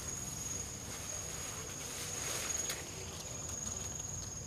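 Insects singing a steady, high-pitched, unbroken trill, with a brief rustle of grass and leaves about halfway through as someone pushes through the undergrowth.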